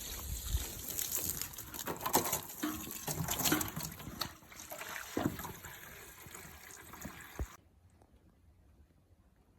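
Spring water running and splashing steadily, the spring flowing hard because the groundwater is high after the snow. It cuts off suddenly about seven and a half seconds in.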